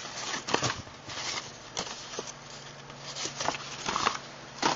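Paper and plastic firework packaging rustling and crinkling as it is handled, in short irregular bursts, over a faint steady hum.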